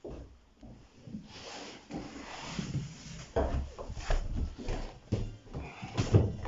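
Irregular knocks, bumps and rubbing scrapes of objects being handled, with a louder knock near the end.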